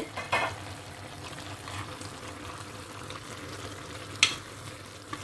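Thick, reduced soya meat curry bubbling and sizzling in a stainless steel pan, with a wooden spatula stirring it. A single sharp knock of the spatula against the pan comes about four seconds in.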